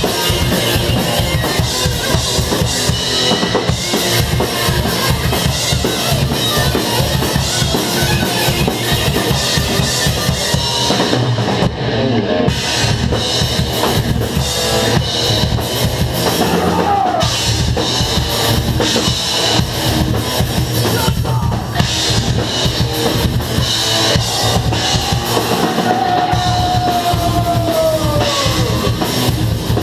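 Metal band playing loud, dominated by fast, dense drumming on bass drum and snare under a wall of guitar sound.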